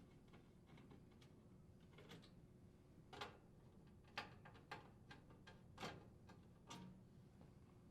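Faint, scattered clicks and taps of a Phillips screwdriver unthreading the screws that hold an induction range's main top, about six over several seconds.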